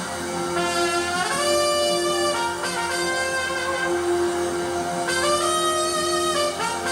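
Two long horn blasts, each sliding up into a held note, about four seconds apart, over a sustained keyboard chord from the worship band.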